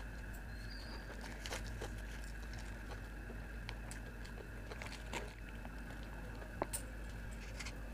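Close-miked eating sounds: chewing and scattered small wet mouth clicks as noodles are eaten, then a bite into a tissue-wrapped egg roll with a sharper click near the end, over a steady low hum.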